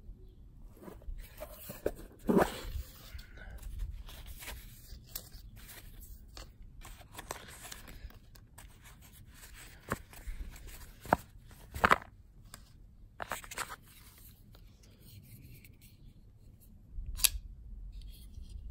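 Hands opening a cardboard knife box: scraping and rustling of the card lid and the polishing cloth inside, with several sharp clicks and taps, the sharpest near the end.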